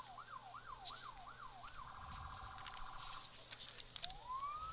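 Distant police car siren switching between tones: a fast yelp of rising-and-falling sweeps, about three a second, changes about two seconds in to a rapid steady warble. After a brief gap, a slow rising wail starts near the end.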